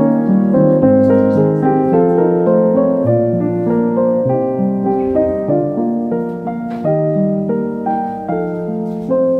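Background piano music: a gentle melody of held notes over a steady accompaniment.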